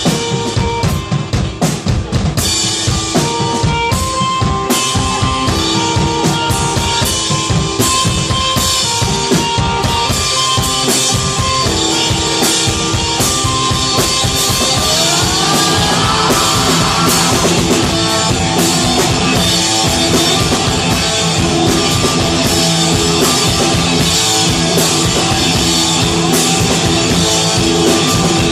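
Live rock band playing an instrumental passage: a drum kit pounding out a dense beat under held guitar notes, with a rising guitar slide about halfway through.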